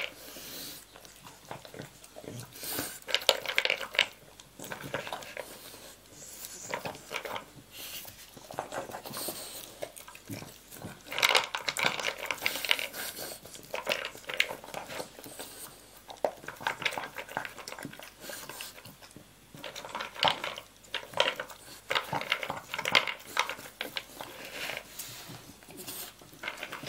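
A dog eating dry kibble from a slow-feeder bowl: irregular clattering of kibble and bowl as it noses around the raised knobs, with crunching, coming in louder spells several seconds apart.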